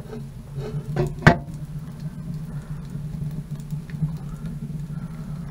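Wood fire crackling in a homemade propane-tank wood stove, with a little steam from rainwater that ran down the stovepipe into it. About a second in comes one sharp metal clank as the stove's steel door is swung shut.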